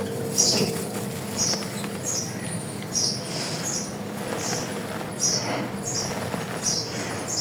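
Dry Emerald chalk being crumbled, giving a dozen or so short, dry crunches at an uneven pace.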